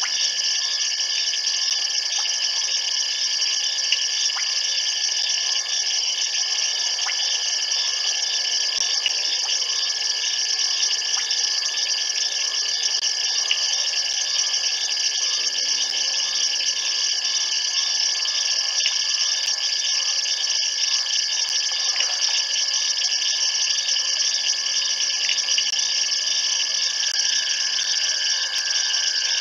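Dense, steady night chorus of insects and frogs, with a continuous high chirring and one steady high trill running through it.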